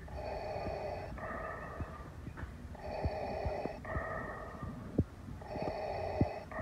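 Darth Vader's mechanical respirator breathing: a hissing in-breath and out-breath alternating steadily, about one full breath every two and a half seconds.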